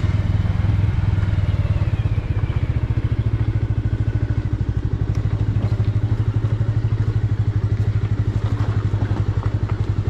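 Bajaj Avenger 180's single-cylinder engine running at a steady, low-revving pace while riding over a rough dirt track. From about halfway through, light knocks and clatter from the bumps sound over the engine.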